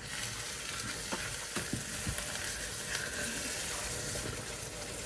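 Ground egusi mixture frying in red palm oil, with a steady sizzle, and a spoon stirring it in the pot with a few light knocks.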